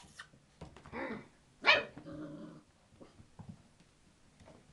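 Black standard goldendoodle puppies barking: two short puppy barks, the louder and sharper one a little under two seconds in, followed by a lower held sound lasting about half a second.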